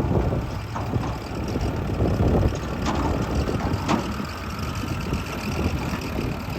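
Engine of road-construction machinery running steadily, with two short sharp clicks about three and four seconds in.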